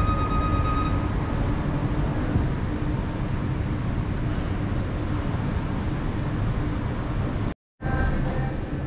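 Steady low rumble of city street ambience, with a ringing tone that stops abruptly about a second in and a brief total dropout near the end.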